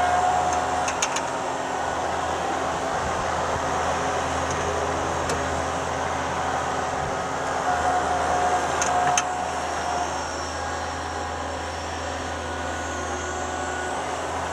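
Thomas 153 skid steer running steadily while moving snow, with a thin whine that comes and goes and a few sharp clicks about a second in and again near nine seconds.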